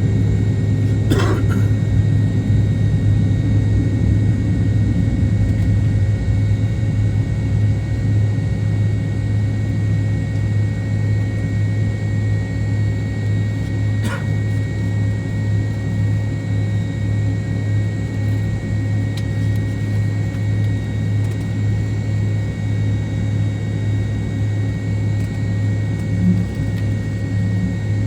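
Steady cabin drone of an MD-88 airliner, with the low hum of its rear-mounted Pratt & Whitney JT8D turbofans and several steady higher tones. There is a short noise about a second in and a single click about halfway through.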